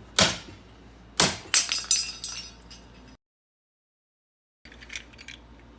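Two sharp metal knocks about a second apart, then a quick cluster of ringing metallic clinks from door-knob lock parts being handled on a workbench. The sound then cuts to dead silence for over a second before a few light clicks.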